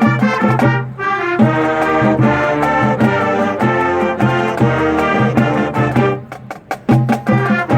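Honors concert band playing an upbeat, brass-led piece over a steady drum beat. About six seconds in, the band thins out to a few sharp percussion hits, then comes back in full.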